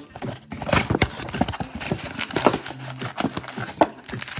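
Cardboard trading-card mega box being torn open and its foil card packs handled: a quick, uneven run of sharp taps, crinkles and scrapes.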